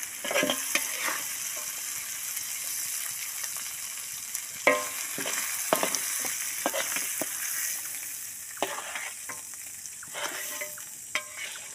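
Chilli sambal sizzling in hot oil in a pan, with a steady high hiss. A spatula stirs and scrapes against the pan every second or so.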